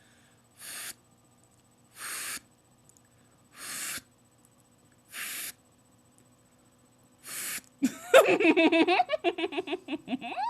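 A girl making a vocal sound effect: five short breathy hisses about a second and a half apart, then a loud warbling, rapidly wavering voiced sound near the end.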